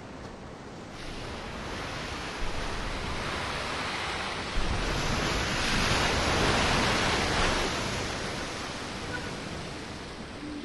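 Sea waves washing on the shore: a steady rush of surf that swells up to a peak past the middle and then eases off.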